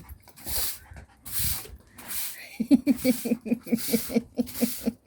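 A broom's bristles sweep across the ground in a few short scrapes. Then, about halfway through, a dog playing with the broom starts a rapid string of short throaty sounds, about five a second.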